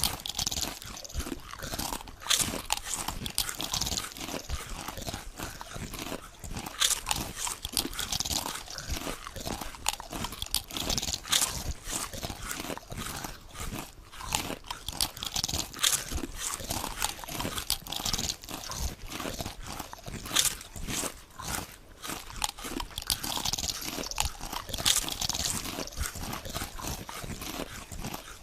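Potato chips being bitten and chewed close to the microphone: a steady run of crisp, crackling crunches with louder bites every second or so.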